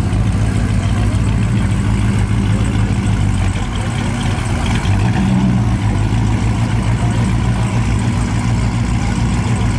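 1955 Chevy Bel Air's 383 stroker small-block V8 idling steadily through its exhaust.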